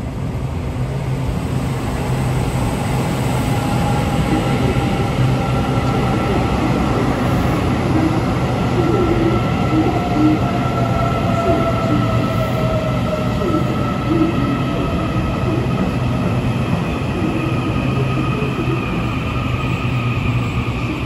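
Taiwan Railways EMU800 electric multiple unit pulling into an underground station platform, growing louder over the first few seconds as it arrives. Wheels on rail give a steady rumble under several held motor whines that slowly glide in pitch, one of them falling, as the train slows to a stop.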